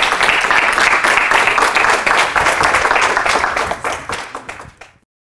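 Audience applauding at the end of a lecture, a dense patter of many hands clapping that fades out about four seconds in and is cut off about five seconds in.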